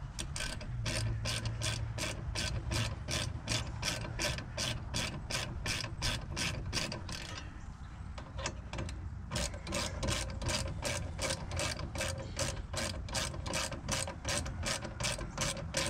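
Hand ratchet wrench clicking steadily, about three to four clicks a second, as a rear brake caliper bolt is run out. There is a pause of nearly two seconds about halfway through, then the clicking resumes.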